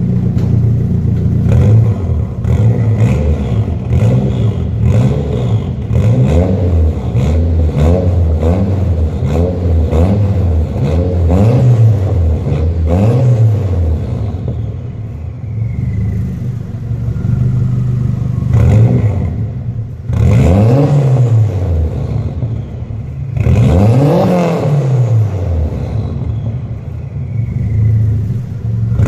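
Nissan S15 Silvia's turbocharged SR20DET inline-four idling and being blipped over and over, then taken up in two longer, higher revs about two-thirds of the way through. After several revs a thin falling whistle follows: the Precision ball-bearing turbo spooling down.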